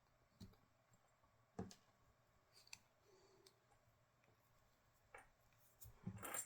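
Faint, scattered clicks and light taps of small parts being handled while a wire is fitted to the charging connector, a handful spread through the first few seconds and a denser cluster near the end.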